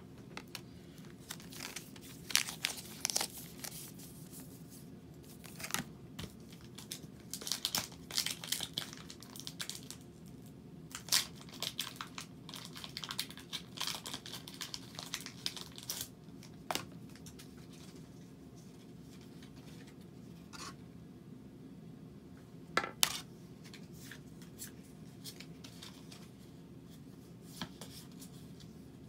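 Plastic packaging of Pokémon cards being torn open and crinkled in repeated bursts through the first half, followed by a few sharp clicks.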